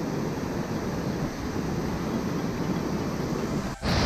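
Steady rushing of water, a mountain river or waterfall, with a short break near the end.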